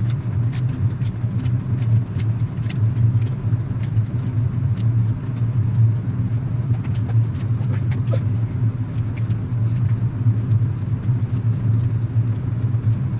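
Steady low machine hum, loud and unbroken, with many light clicks and taps scattered over it.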